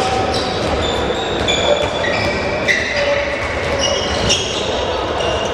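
Indoor handball training: athletic shoes squeaking in short, high chirps on the court floor, a handball bouncing a few times, over echoing sports-hall noise.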